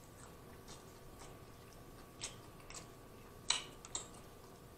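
Close-miked chewing of a corned beef sub sandwich: irregular wet mouth clicks and lip smacks, a few louder ones together about three and a half seconds in.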